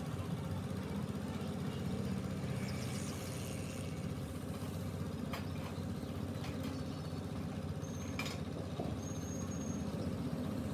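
Machinery running with a steady low drone, with a few short sharp clicks or knocks about halfway through.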